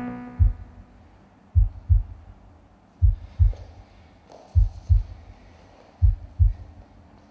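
Heartbeat in the soundtrack: slow, very low lub-dub double thumps, one pair about every second and a half.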